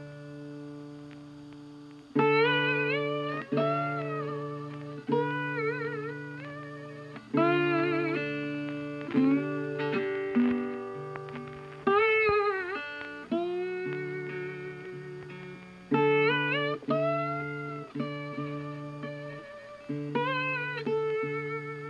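Background music: a melody on a plucked string instrument, each note sliding up in pitch as it starts and then ringing out and fading, over held low notes.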